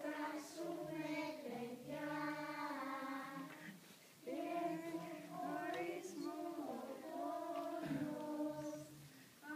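A group of young children singing a song together, in held phrases with short breaks about four seconds in and near the end.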